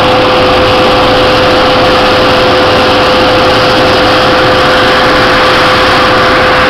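Snowcat's engine running steadily and loudly under way, with one steady tone held through it.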